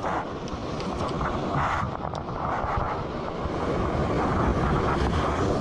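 Wind buffeting the microphone over surf washing against a rocky shore: a steady, noisy roar, heaviest in the low end, with a few faint clicks.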